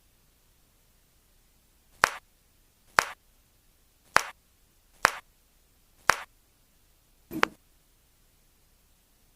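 Joints cracking during a chiropractic adjustment: six sharp pops about a second apart, the last one duller and fuller.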